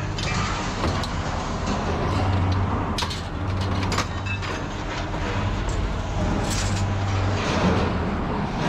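Truck engine idling steadily, with several sharp knocks and clicks over it.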